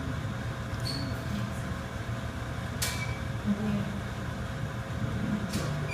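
Steady low background hum of a room, with a few faint clicks.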